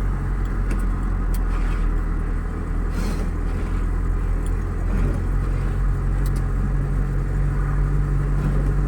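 UAZ off-roader's engine running steadily under load, heard from inside the cab, with scattered sharp knocks and rattles as the loaded vehicle rocks over a rough track.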